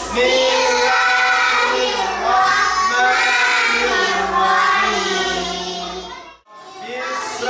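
Group of young children chanting a Muslim prayer (doa) together in unison to a sung melody, in long held notes, with a short break about six and a half seconds in before they start the next line.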